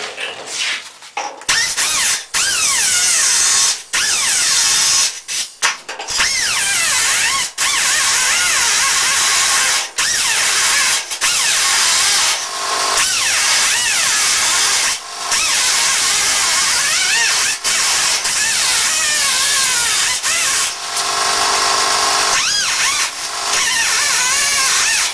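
Small abrasive cut-off wheel cutting the sheet steel of a truck's door pillar and kick panel: a high whine that sags in pitch as the wheel bites into the metal and climbs again as it eases off. It stops for a moment many times between passes.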